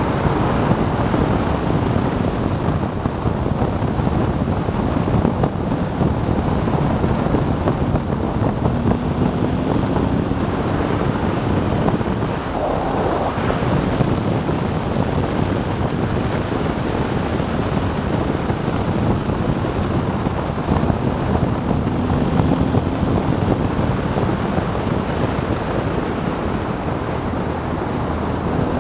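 Wind rushing over the microphone on a moving motorcycle, with the BMW R 1200 GS Adventure's boxer-twin engine running underneath. The engine note rises and falls as the bike speeds up and slows between curves.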